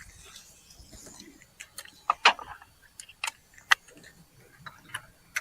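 A series of about ten irregular, sharp clicks and light taps, as of small hard objects being handled, the loudest a little after two seconds in.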